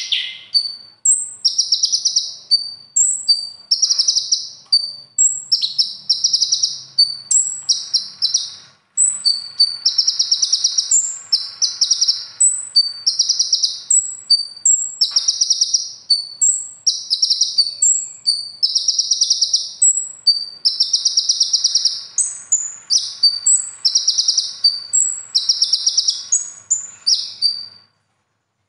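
Male kolibri ninja (Van Hasselt's sunbird) singing: a rapid string of short buzzy trilled phrases, each about half a second long, alternating with thin high notes and repeated almost without pause, with a brief break about nine seconds in.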